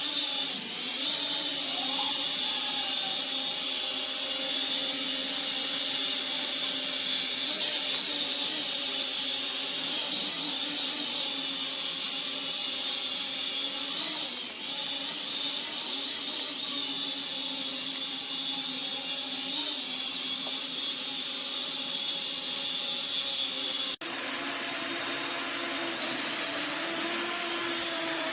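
Toy mini quadcopter drone's small electric motors and propellers spinning with a steady high whine, the drone failing to lift off. The sound shifts abruptly near the end.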